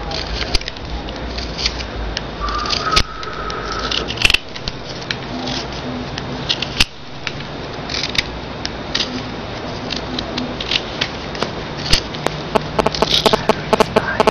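Razor blade shaving a wooden pencil to a point in short, irregular scraping strokes, fine-tuning the tip.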